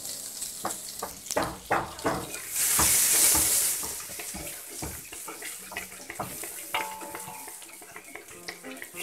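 Margarine sizzling in a wok while a wooden spatula scrapes and knocks against the pan, with a louder burst of hissing about two and a half seconds in that lasts about a second.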